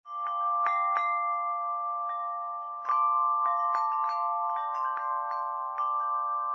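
Intro jingle of bell-like chimes: struck notes ring out one after another over a steady, held ringing chord.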